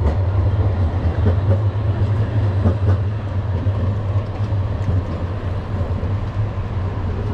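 Tram passing close by on its street rails and moving away, a steady low rumble that eases a little after about three seconds.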